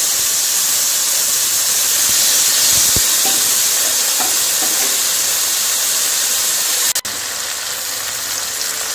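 Wet boiled colocasia stems sizzling and steaming in hot oil with cumin seeds and dried red chillies in a wok, a loud, steady hiss. It cuts out for an instant about seven seconds in, then carries on a little quieter.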